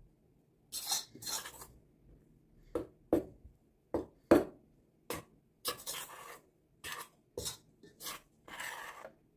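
A metal spoon scraping and knocking against a stainless steel bowl while stirring chickpea flour into a soft creamed mixture, in irregular strokes with a sharp knock about four seconds in.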